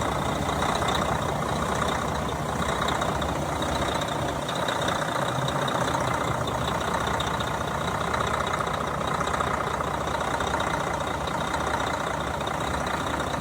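Semi-truck engine idling steadily after an AC compressor replacement, with a faint steady high whine over the running noise.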